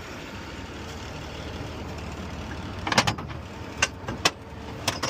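Steady motor-vehicle rumble, then a handful of sharp knocks and clanks starting about three seconds in, typical of tire-changing tools and gear being handled.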